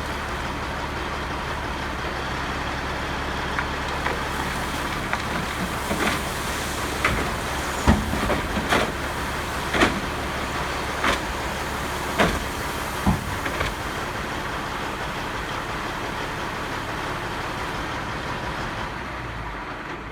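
Sterling tri-axle dump truck's diesel engine running steadily while dumping asphalt millings. In the middle there is a string of about eight sharp bangs from the truck, a second or so apart.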